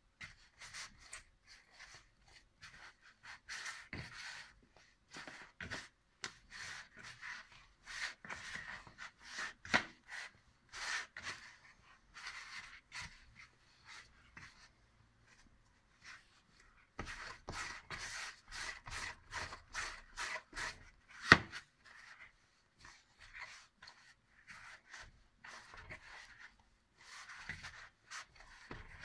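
A hand kneading soft yeast dough in a plastic bowl: irregular squishing, rubbing strokes of dough pressed and folded against the bowl, with a couple of sharper knocks on the bowl and a pause of a few seconds midway.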